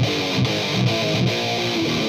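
Electric guitar played through a Mesa Boogie Road King V2 tube amp on its high-gain metal distortion channel. A fast riff mixes low muted chugs with quick higher single notes.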